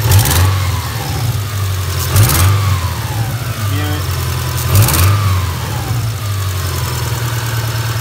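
A 2000 Subaru Outback's flat-four engine idling and revved three times, each time rising and dropping back to idle. The revs bring out a clicking that the owner takes for sticking lifters.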